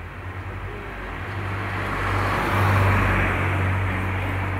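A road vehicle passing by, its engine hum and tyre noise building to a peak around the middle and easing off.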